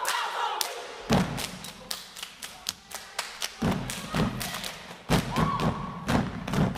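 Step team stepping in unison: a fast, uneven rhythm of sharp foot stomps and hand claps, with heavy low stomps that come in about a second in and again in stronger runs later on.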